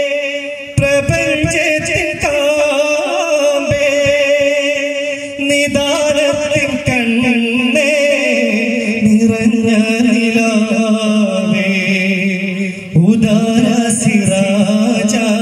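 A group of boys singing a devotional Mappila song in unison while beating daf frame drums in rhythm. The drum strikes thin out in the middle, then come back with a sudden louder entry about thirteen seconds in.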